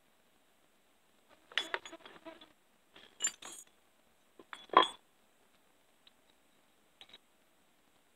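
Small steel chainsaw chain parts clinking, with light metal taps and one louder sharp knock about five seconds in, from riveting a chain tie strap with a punch and ball peen hammer on a felling wedge.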